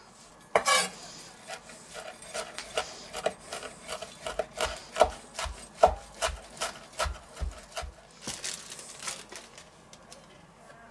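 Chef's knife chopping fresh herbs (rosemary and parsley) on a wooden cutting board: a run of short knocks of the blade on the wood, about three a second, followed by a short rustle near the end.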